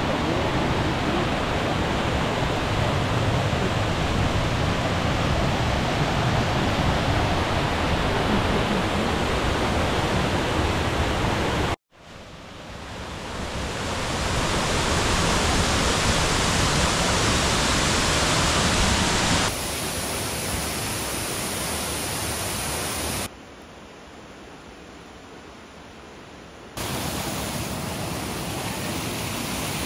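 Falling and rushing water from waterfalls and fast mountain streams, a steady noise of water heard across a string of clips. It drops out briefly about twelve seconds in and swells back, then changes level abruptly three more times, quietest for a few seconds near the end.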